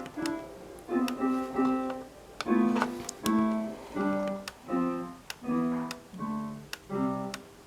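Piano music: chords struck one after another in a steady pulse, roughly every half second.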